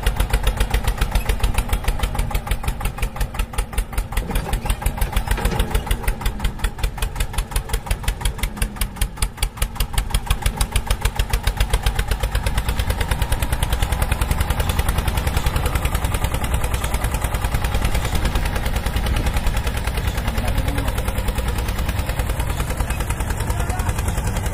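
Engine running steadily with a fast, even chugging beat.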